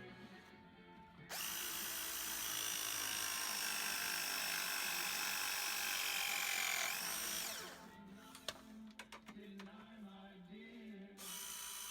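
Power drill running at speed for about six seconds, then winding down in pitch as it stops. A few sharp clicks follow, and a similar high-pitched running noise starts again near the end.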